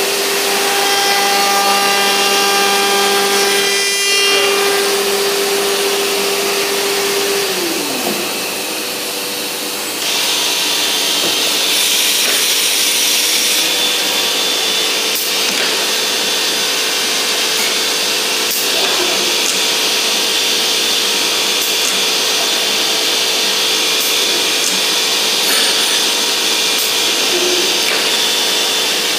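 CNC wood router machining a panel. A spindle's steady whine glides down and stops about eight seconds in. About ten seconds in, a louder, hissing cutting noise sets in and runs steadily, with a few faint clicks.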